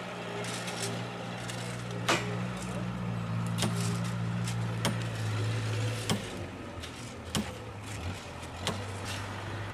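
Six sharp, ringing hammer blows on railway track, about one every 1.3 s, as workers strike at the rails and ties with long-handled tools. Under them a nearby engine idles steadily.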